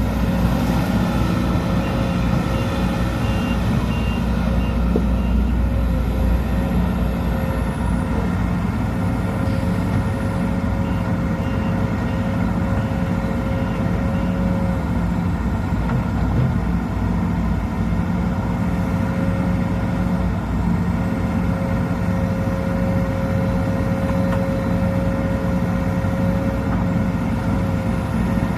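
Sumitomo SH210 excavator's diesel engine running steadily under load, with a steady whine over the engine hum. Faint short beeping comes and goes twice.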